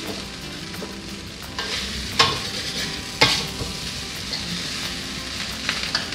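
Fried rice sizzling in a metal wok while a metal spatula stirs and tosses it, scraping the pan, with sharp clanks of the spatula against the wok, the two loudest about a second apart a couple of seconds in.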